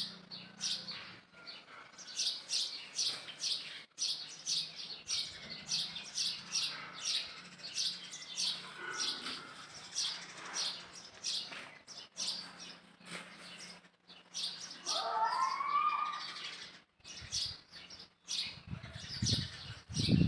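Small birds chirping over and over, several short high chirps a second. About three-quarters of the way through, one longer call rises and falls, and a few low thumps come near the end.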